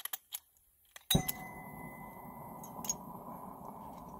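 A few sharp clicks, then a long-handled propane torch lighting with a sudden whoosh about a second in and burning steadily with a rushing hiss, a thin high whistle fading out after a couple of seconds.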